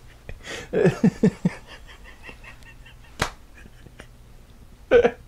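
A man's short wordless vocal sounds about a second in, a single sharp smack about three seconds in, and more short vocal sounds near the end.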